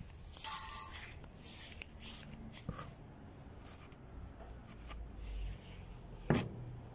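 Handling noise from a hand-held phone: scattered rubbing and small clicks, a brief rasp just under a second in, and one sharp knock about six seconds in.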